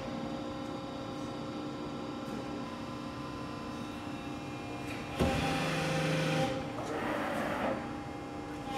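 Hydraulic pump and motor of a Cincinnati CNC press brake humming steadily. About five seconds in, a sudden knock starts a louder whirring of the machine moving through its programmed cycle, lasting about a second and a half, followed by a shorter rushing sound.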